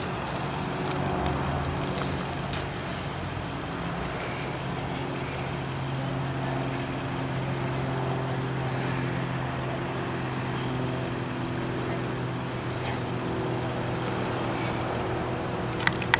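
A vehicle engine drones steadily throughout with a low hum. There is a sharp click near the end.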